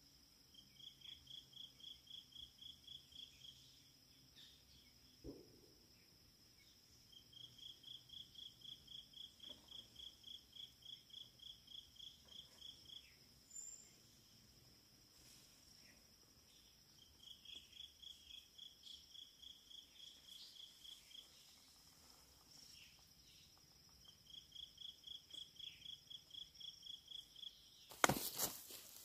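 Faint forest insects: a high pulsed chirp, about five pulses a second, comes in bouts of a few seconds with pauses between, over a steady high-pitched insect drone. A sudden loud noise near the end.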